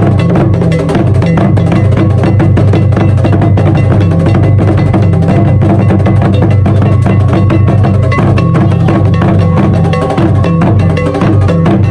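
Ga obonu drum ensemble: tall carved barrel drums and a pair of smaller drums struck with sticks, playing a loud, dense, continuous rhythm.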